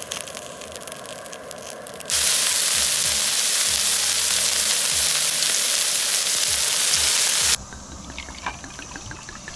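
Pork belly frying on a round griddle plate: crackling and spitting at first, then from about two seconds in a loud, steady sizzle of cut pieces frying, which cuts off suddenly about two seconds before the end. Near the end, quieter pouring of wine into a glass.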